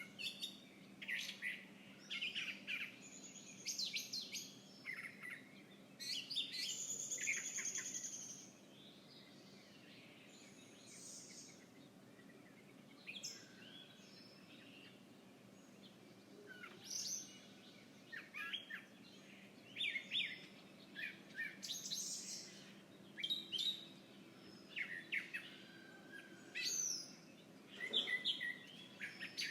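Several songbirds chirping and calling in short, scattered phrases, with a denser run of calls about seven seconds in and a lull through the middle, over a faint steady background hum.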